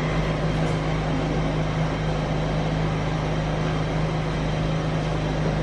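A steady low mechanical hum with a constant tone over an even hiss.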